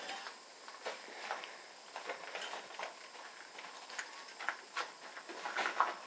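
Irregular footsteps across a floor littered with debris, a few steps a second.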